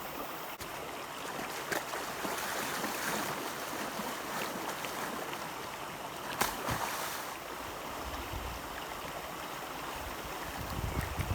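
River water running steadily, with a couple of brief sharp sounds about two seconds in and again about six seconds in.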